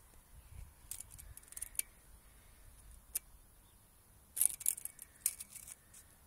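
Scattered small sharp clicks and light rattles from handling a metal tape measure against sawn log ends, most of them clustered near the end.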